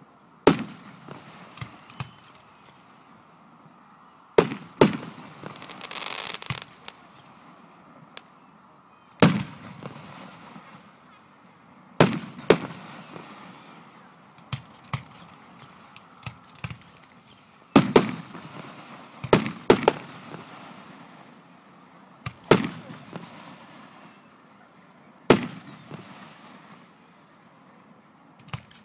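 Aerial fireworks shells bursting: about a dozen sharp booms, several in quick pairs, each trailing off in echo, with a crackling fizz after the pair a little over four seconds in.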